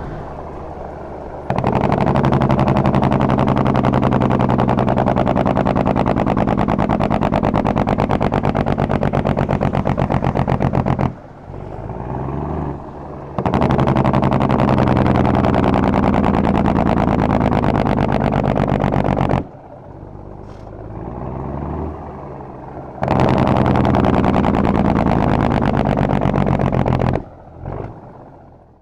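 Jacobs engine brake on a 1952 Kenworth CD521's Cummins 855 (14 L) diesel, exhausting through dual 7-inch stacks, firing in three long, loud, rapidly pulsing bursts of about nine, six and four seconds. Between the bursts the engine runs more quietly, its pitch gliding.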